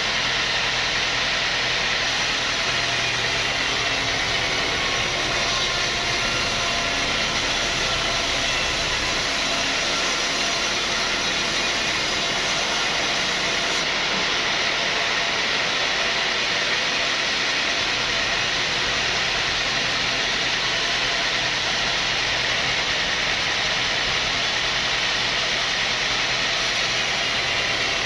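Sawmill saw running steadily while sawing a mahogany log, a loud even whine and hiss without a break.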